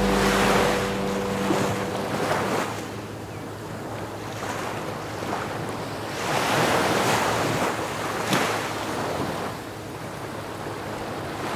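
Sea waves washing onto the shore in repeated swells that rise and fall, with wind buffeting the microphone. The tail of background music fades out during the first two seconds.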